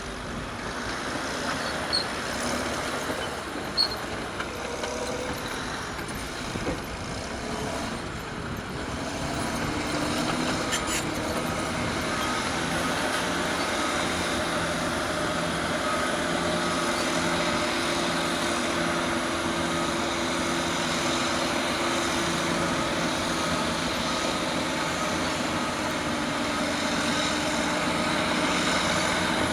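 Caterpillar D6R bulldozer's diesel engine running under load while pushing dirt, with two sharp knocks in the first few seconds; about ten seconds in the engine note grows louder and steadier.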